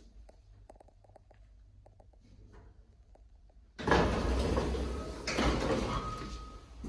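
Automatic sliding doors of a Curti hydraulic lift rumbling and rattling open, starting suddenly almost four seconds in after a quiet stretch of small clicks. A thin steady high tone sounds for about a second near the end.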